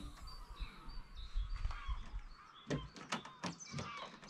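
Several sharp clicks and knocks in the second half as a folded Kettwiesel Evo recumbent trike is handled in a car boot. A low rumble sounds in the first two seconds, and small birds chirp in the background.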